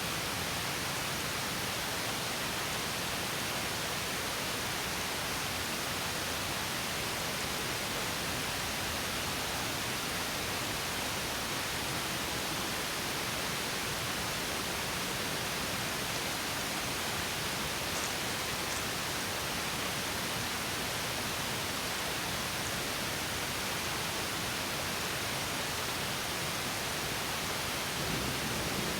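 Small stream water spilling over a mini waterfall: a steady, even rushing that gets a little fuller and louder about a second before the end.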